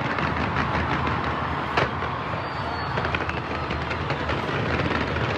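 Fireworks going off in rapid succession: a continuous crackling rumble of many bursts, with one sharper bang a little under two seconds in.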